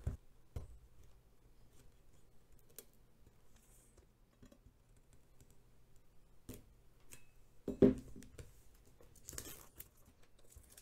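A kitchen knife scratching and picking at the plastic shrink-wrap on a cardboard box: faint scrapes and small clicks, with one louder knock about eight seconds in. The blunt knife makes slow work of the film.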